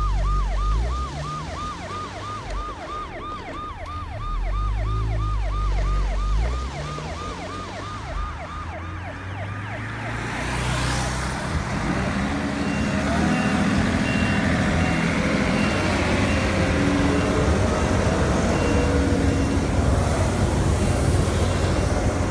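Ambulance siren in fast, repeating falling sweeps, about four a second, over a running vehicle motor. The siren fades out about ten seconds in, leaving a steady, noisier mechanical running sound with a thin high beep repeating over it.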